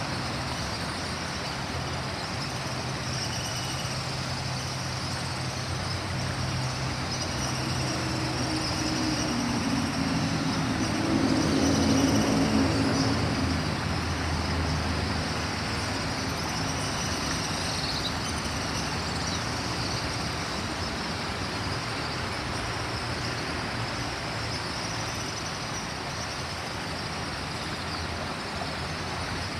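Steady rush of river water churning over rocks, with a motor vehicle crossing the bridge overhead: its engine swells up, is loudest about twelve seconds in, and fades away.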